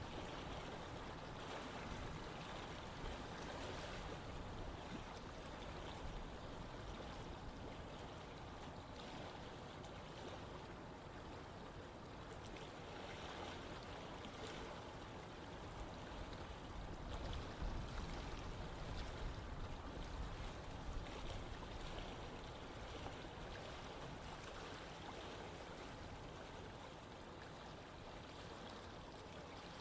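Running water of a stream flowing steadily, an even rushing sound that swells slightly with a few small splashes about two-thirds of the way through.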